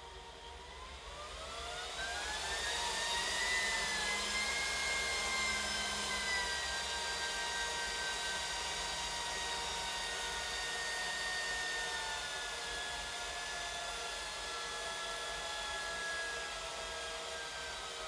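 HPE ProLiant DL380 Gen9 server's cooling fans spinning up during power-on self-test: a whine of several tones that rises over about two seconds, then holds high and eases down slightly twice.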